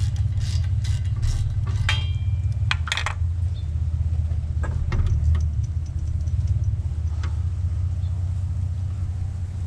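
Metal tools clinking and clicking against the exhaust header as its last nut is worked loose, several quick clinks in the first three seconds and a few more later. Under them runs a steady low rumble.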